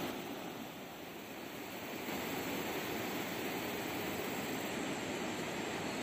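Steady rushing outdoor noise with no distinct events, easing slightly about a second in before returning to its level.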